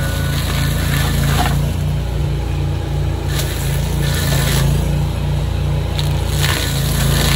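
Beavertech forestry mulcher with its own Honda 20 hp engine running at steady working speed, a constant drone with a regular throb. Its cutting rotor gives several short crackling hits as it chews through brush and wood.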